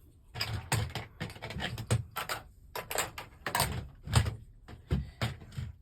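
Plastic Lego bricks being handled: a quick, irregular string of sharp clicks and knocks, some with a dull thump underneath.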